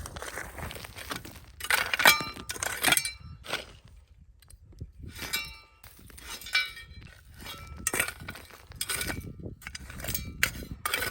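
Irregular clinks and knocks, several with a brief ringing tone, as of hard objects striking one another.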